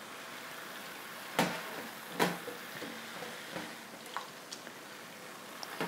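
Wine and cranberry sauce simmering in an electric skillet with a steady low sizzle, while a metal spatula stirs and scrapes in the pan, with sharp clinks about one and a half and two seconds in.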